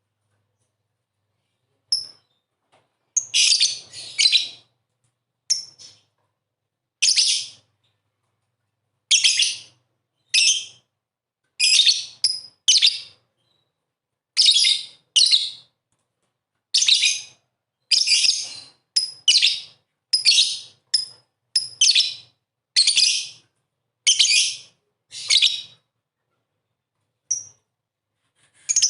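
Lovebird giving short, high-pitched chirping calls, about two dozen in all, often in quick pairs, with silent gaps between them.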